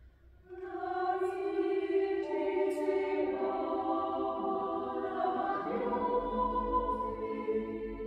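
Mixed a cappella choir singing slow, held chords, entering about half a second in after a near-silent pause and moving to new chords every second or two.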